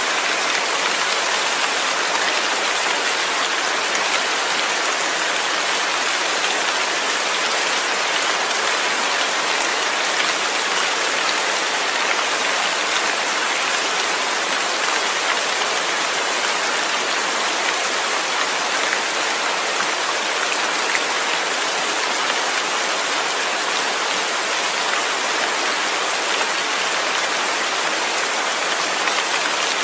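Rain falling steadily, a constant even hiss with no thunder or pauses.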